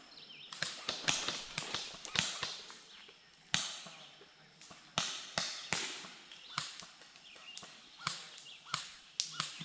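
Footsteps crunching and rustling through dry leaf litter, irregular steps roughly every half second to second, with a couple of sharper clicks near the end.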